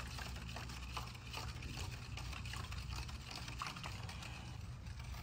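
Baking soda being stirred into water in a plastic cup: small irregular clicks and scrapes of the stirring spoon against the cup, with liquid swishing. A low steady hum runs underneath.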